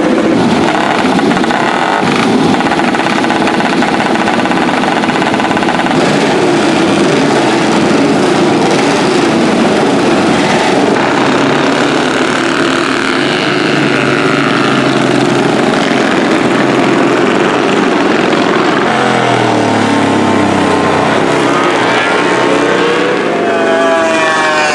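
Vintage motorcycle engines running loud and continuous, revving, with the engine pitch falling about three-quarters of the way through and rising again near the end as bikes pass.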